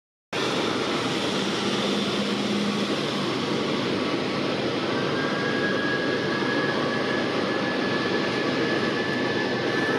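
Airbus A320-232's twin IAE V2500 turbofan engines at takeoff thrust during the takeoff roll: a steady jet roar, joined about halfway through by a thin, steady high whine.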